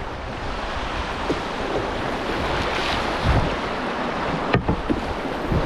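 Rushing water of a small class 1 river rapid heard from a canoe running it, with wind buffeting the microphone and a few low thumps.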